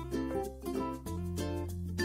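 Background music: a light plucked-string tune of quick, evenly spaced notes over held bass notes.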